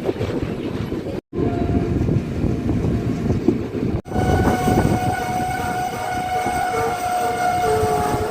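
Passenger train running, with a steady rumble of wheels and carriages. About four seconds in, the train's horn starts and holds one long steady note over the rumble.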